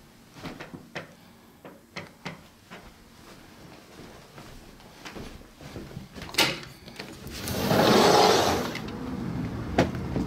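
Scattered light knocks, then a sharp click as a sliding patio door is unlatched and a loud rush for about a second as it is rolled open along its track; a steady outdoor background follows once it is open.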